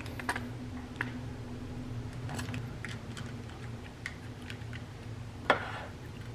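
Scattered light clicks and taps of food being packed into stainless steel lunch boxes with chopsticks, with one louder knock near the end as a box is handled on the counter. A steady low hum runs underneath.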